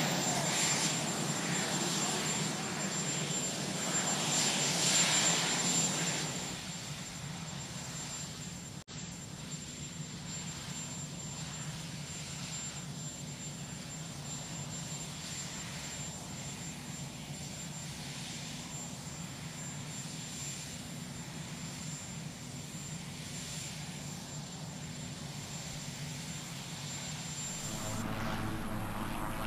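Marine One, a Sikorsky VH-3D Sea King helicopter, running its twin turboshaft engines on the ground: a steady drone with a thin high whine. It is louder for the first six seconds, then drops to a lower steady level.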